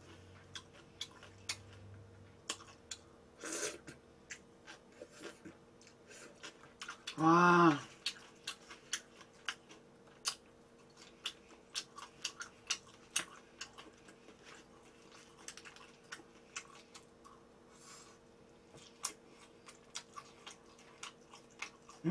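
Close-up eating sounds of a person chewing spicy cold noodles (bibim naengmyeon): a steady run of small wet mouth clicks and smacks. There is a brief vocal sound about seven seconds in.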